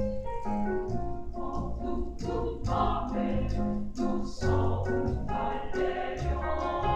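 Women's choir singing in several parts at once.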